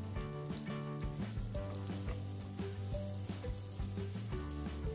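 Butter and olive oil sizzling in a frying pan as the butter melts, stirred with a silicone spatula. Background music with steady held notes plays under it.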